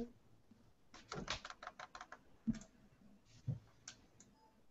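Computer keyboard typing: a quick run of keystrokes about a second in, then a few scattered key taps, one sharper than the rest about halfway.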